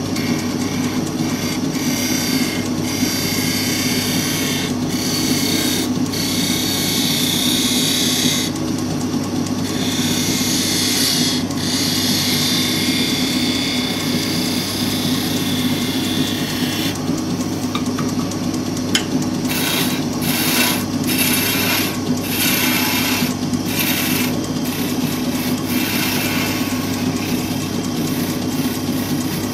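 Wood lathe running with a steady hum while a hand-held turning tool cuts a spinning purpleheart grip, a hiss that comes and goes with each pass. From about halfway the cuts turn into short strokes with brief gaps between them.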